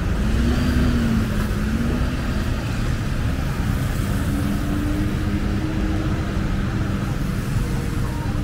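Road traffic with a motor vehicle's engine running close by: a steady low rumble with a hum that wavers in pitch at first, then settles into a steady drone.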